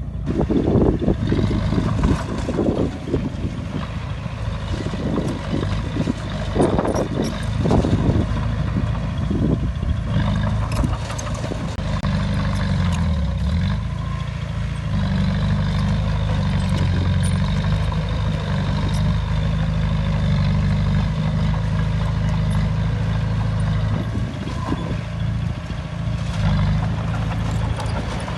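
Heavy diesel engine of an earthmoving machine running steadily, its engine speed dipping briefly and recovering about halfway through, with wind gusting on the microphone in the first third.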